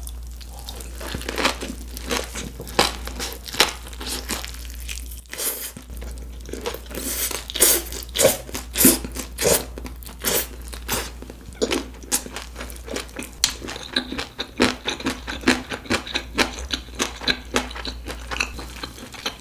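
Close-miked biting and chewing of donkatsu gimbap (rice roll with fried pork cutlet), the fried cutlet crunching in many short, irregular crunches, several a second.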